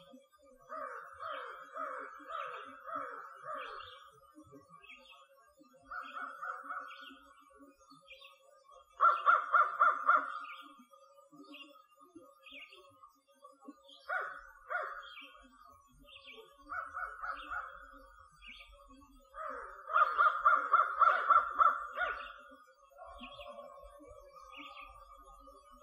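Crows cawing in bursts of rapid, evenly spaced caws, the loudest strings about nine seconds in and again around twenty seconds in. A smaller bird chirps over and over, fainter and higher.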